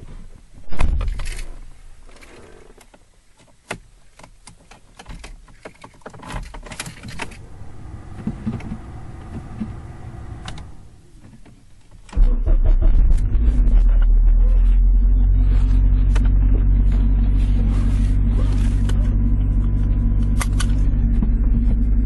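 A car door shuts with a loud knock about a second in, followed by keys and small clicks and rustles inside the car. About halfway through the car's engine starts abruptly and settles into a steady idle.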